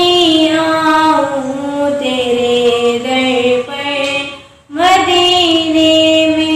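A girl singing a naat unaccompanied. She holds long notes that slowly fall in pitch through one phrase, takes a short breath about four and a half seconds in, then starts a new phrase higher.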